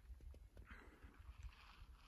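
Near silence: faint outdoor background with a low rumble and a few soft knocks.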